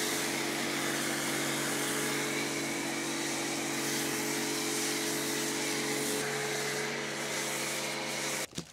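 Kärcher pressure washer running steadily, its motor and pump humming under the hiss of a snow-foam lance spraying foam. The sound cuts off abruptly just before the end.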